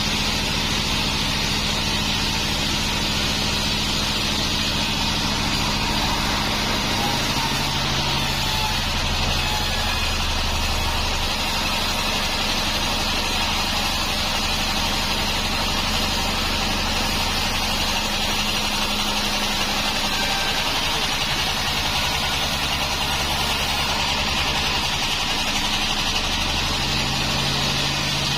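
Band sawmill running steadily: a constant machine drone with a hiss over it, its low hum shifting in pitch a few times.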